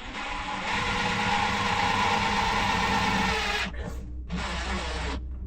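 Cordless drill driving a screw: a steady motor whir for about three and a half seconds, a brief stop, then a shorter second run.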